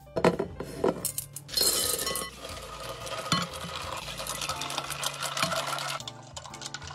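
A few sharp clinks against glass, then coffee poured from a glass jug into a large glass fishbowl, a steady splashing pour lasting about four seconds.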